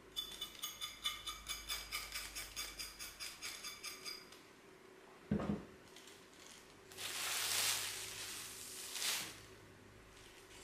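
Kitchen knife scraping the skin off a knob of ginger in quick, even strokes, about five a second, for some four seconds. Then a single knock on the plastic cutting board, followed by a thin plastic bag crinkling, loudest a little past the middle and again briefly near the end.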